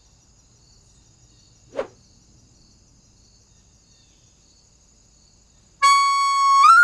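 Cartoon soundtrack falling almost silent, with a faint steady high tone and one short blip about two seconds in. Near the end a loud, sustained whistle-like electronic tone begins and steps up in pitch.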